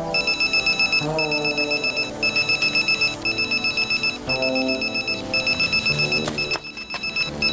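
Pager beeping with an incoming page: rapid high beeps in bursts of about a second, repeating with short gaps and a brief break near the end.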